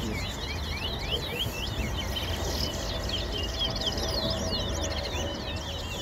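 Caged towa-towa seed finch singing: a fast, unbroken run of sharp chirped and whistled notes, phrase after phrase.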